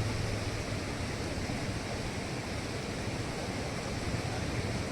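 Steady, even rushing noise with a low hum underneath, and no distinct events.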